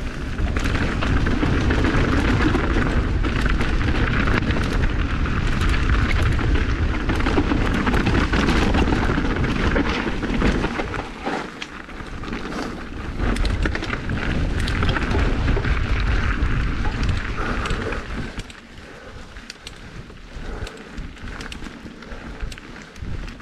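Mountain bike ridden fast down a dirt singletrack: wind buffeting the bike-mounted camera's microphone along with tyre rumble, and many sharp clicks and rattles from the bike over the rough trail. The rumble drops off near the end.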